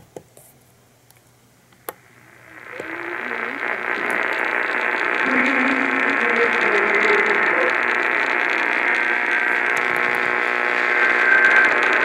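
AM radio receiver tuned to a weak station: two clicks of its buttons, then static hiss fading up from about two seconds in as the volume is raised, with a faint, hard-to-follow voice under the noise.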